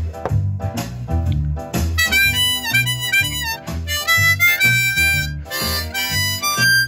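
Diatonic blues harmonica coming in about two seconds in, playing phrases with bent notes over recorded blues backing music with a steady, rhythmic bass line.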